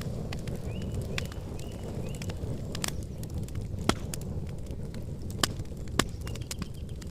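Wood campfire burning with a low rumble and a steady scatter of crackles. Three louder pops come in the second half.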